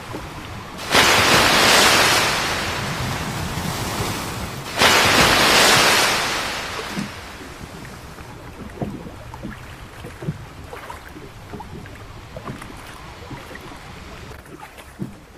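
Seawater splashing beside a boat's hull: two loud splashes about four seconds apart, then quieter water noise with scattered light knocks.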